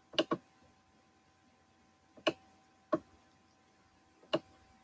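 Computer mouse clicking: a quick double click at the start, then three single clicks spread over the next few seconds.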